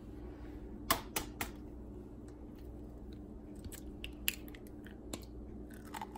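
Quiet handling of eggs over a steel mixing bowl: a few light clicks and taps, three close together about a second in and a few fainter ones later, over a faint steady hum.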